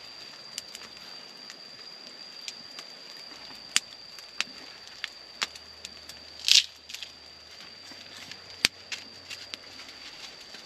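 Wood-fire embers crackling with sharp scattered pops and clicks, one louder crackle about six and a half seconds in, as embers are pushed around a banana-leaf parcel with a wooden stick. A steady high thin tone runs underneath.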